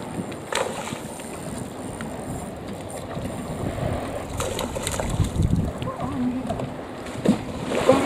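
Wind gusting across the microphone in uneven low rumbles, over water sloshing against the harbour quay. A couple of small knocks stand out, one near the start and one near the end.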